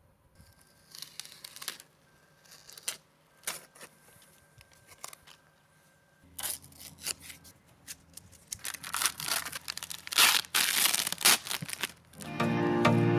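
Masking tape and paper being peeled and torn off a freshly spray-painted plastic minibike body panel: scattered rips and crinkles, denser and louder in the later seconds. Near the end a loud steady buzz starts.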